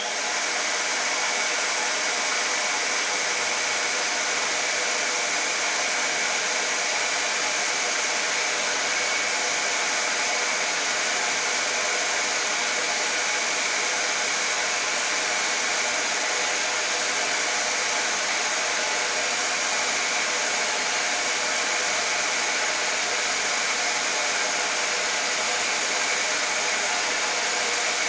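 Hair dryer running steadily, a constant rush of blown air with a faint motor whine, the same level throughout.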